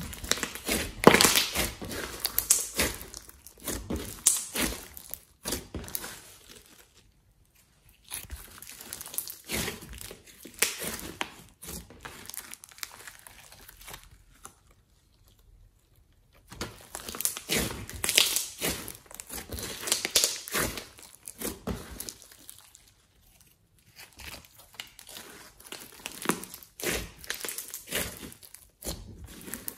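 Hands squeezing, pressing and kneading a large lump of slime: sticky crackling and squelching that comes in four spells of several seconds, with short pauses between them.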